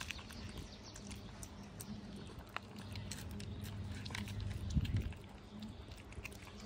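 Two cats eating wet food and kibble from plastic trays: small wet chewing and crunching clicks, over a low hum that comes and goes. A soft low bump is heard about two-thirds of the way through.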